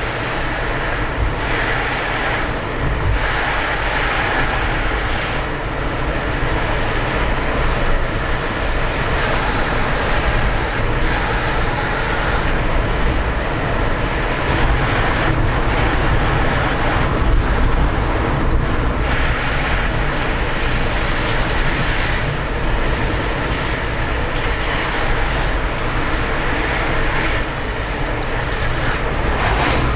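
Steady road, tyre and engine noise of a moving car, heard from inside its cabin.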